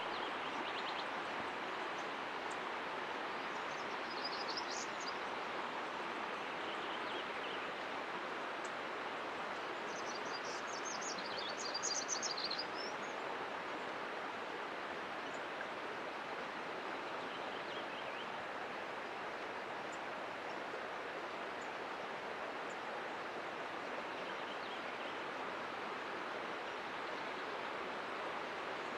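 Steady outdoor rushing noise, like running water or wind, with a few short bursts of high chirping, the loudest about 10 to 12 seconds in.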